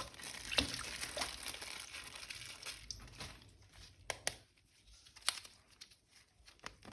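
Plastic toy packaging crinkling as it is handled and opened, then a few sharp clicks as it settles.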